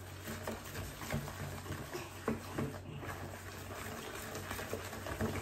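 A spoon stirring stiff cookie dough in a mixing bowl: irregular small scrapes and knocks, over a low steady hum.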